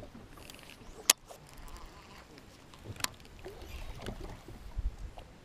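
Two sharp clicks, a loud one about a second in and a weaker one about three seconds in, over low rumble and faint handling noise from a fishing boat.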